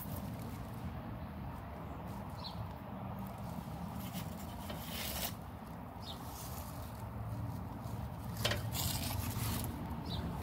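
Faint outdoor background: a steady low rumble with brief rustling scrapes about five seconds in and again near nine seconds, and a few tiny high chirps.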